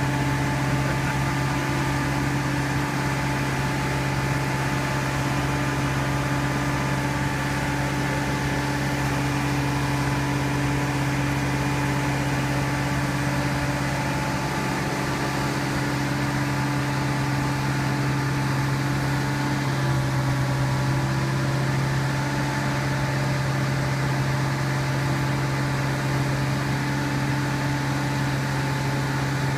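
Telescopic forklift (telehandler) engine running at a steady speed, an even, unchanging hum.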